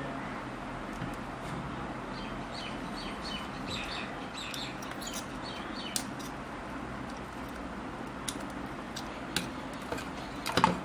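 A bird chirps repeatedly for a few seconds over a steady background hiss. A few sharp clicks come from a diode being desoldered off the battery charger's circuit board, the loudest near the end.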